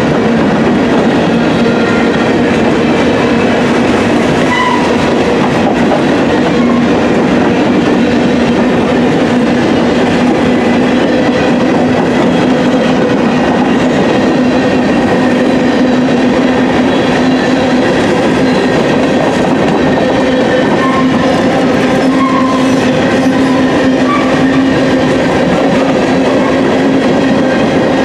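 Covered hopper cars of a grain train rolling past: steady, loud wheel-on-rail noise with a clickety-clack, and a steady low tone underneath.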